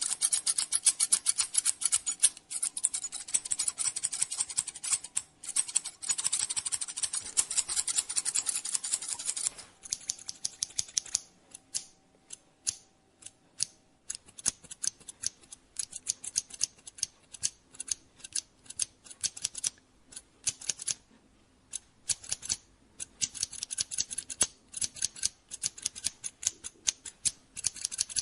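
Barber's scissors snipping through hair close up in quick runs of crisp snips: dense for about the first ten seconds, scattered through the middle, then quick again near the end.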